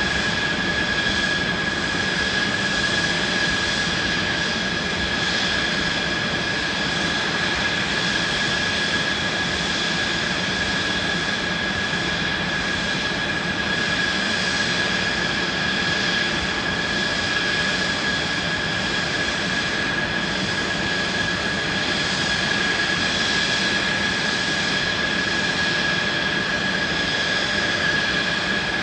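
Mitsubishi F-2 fighters' F110 turbofan engines idling on the ground after start-up: a steady high whine over a broad rushing roar, holding level throughout.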